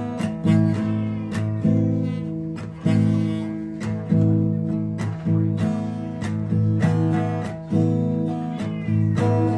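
Acoustic guitar music, chords strummed about once a second, with a cat meowing over it a few times.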